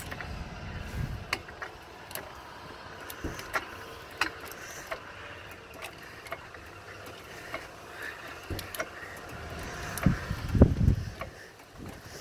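Hydraulic floor jack being pumped to raise a minivan, with light, irregular clicks and creaks; a cluster of deeper thumps about ten seconds in is the loudest sound.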